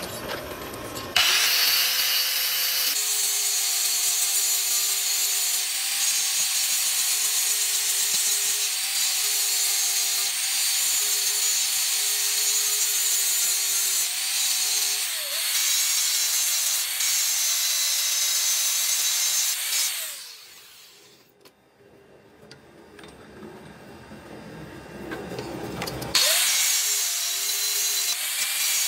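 Angle grinder with a thin disc cutting into a threaded steel bolt held in a vise: a steady motor whine over the hiss of disc on metal. The sound falls away about twenty seconds in, stays quieter for a few seconds, then comes back at full speed near the end.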